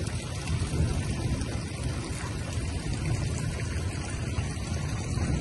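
Heavy rain falling steadily on a flooded street's standing water, an even hiss of drops with a low rumble underneath.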